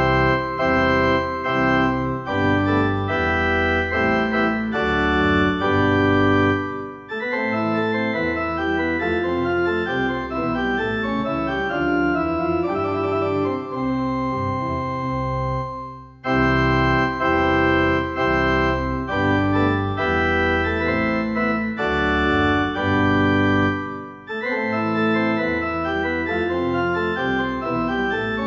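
Casio CDP-S360 digital piano sounding its 93 PipeOrg2 sampled pipe organ preset, with a 16-foot stop adding deep bass under the chords. Sustained organ chords and phrases played with both hands, with three short breaks between phrases.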